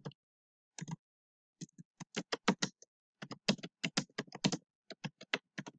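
Computer keyboard being typed on: irregular runs of quick key clicks with short pauses between words.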